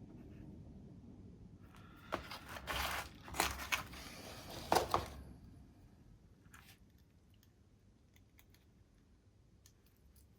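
Crinkling and rustling of small parts' packaging being handled, in several bursts from about two seconds in, ending after about five seconds. A few faint light clicks follow.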